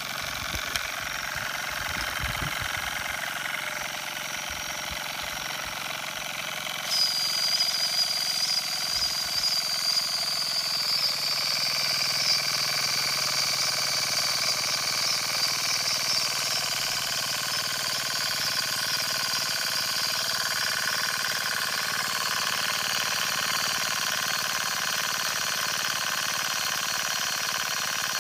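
Doll toy steam engine running under steam, with a steady hiss as its flywheel spins. About seven seconds in, a high, steady whistling hiss of escaping steam starts suddenly and carries on.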